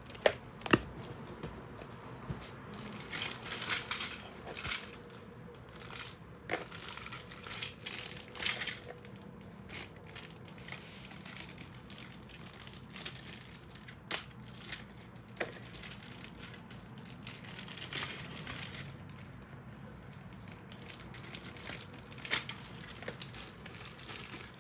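Plastic toy-train packaging crinkling and rustling as it is cut and pulled open, in several bouts, with a few sharp clicks and snaps between them.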